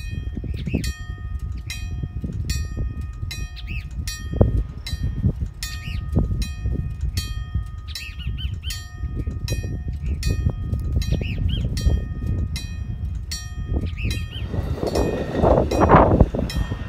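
Railroad crossing bell on a wig-wag signal ringing steadily, about two and a half strokes a second, each stroke ringing on; it stops about two seconds before the end. Wind noise runs underneath, with a louder rush near the end.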